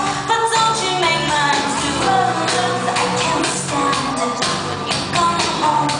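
Live synth-pop band performing, with a woman singing into a microphone over synthesizers and a steady drum beat.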